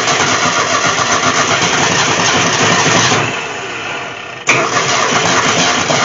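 Ford Falcon engine cranking over and trying to start. The sound eases off about three seconds in, then comes back abruptly about a second and a half later.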